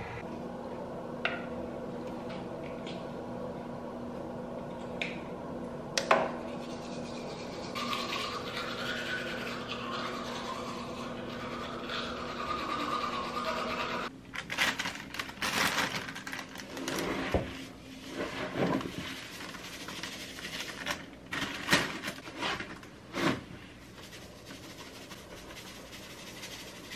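A steady machine-like hum with a few sharp clicks, giving way about halfway through to irregular rubbing and scraping handling noises.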